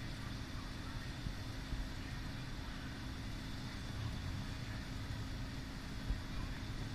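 A pot of peas in coconut milk boiling hard on the stove, giving a steady bubbling with a low rumble underneath and a faint steady hum.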